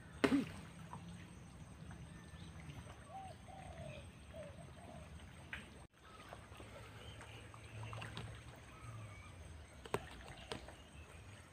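Birds calling, with a few short cooing calls a few seconds in, over a low steady rumble. A sharp knock comes just at the start and a couple of clicks near the end.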